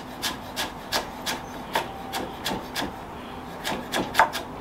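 Kitchen knife dicing carrot on a wooden chopping board: an uneven run of about a dozen sharp chops, roughly three a second.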